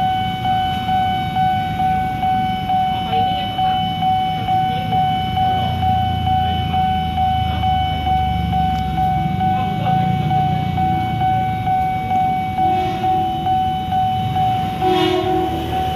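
Railway level-crossing warning alarm sounding a steady electronic tone that pulses about twice a second. Under it is the low rumble of waiting motorcycles and cars, and two short horn blasts come near the end.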